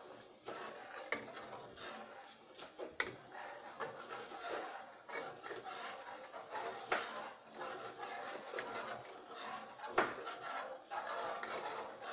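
A metal spoon stirring peas in liquid in a cooking pot, scraping round the pot with a few sharp clicks where it knocks the pot's side.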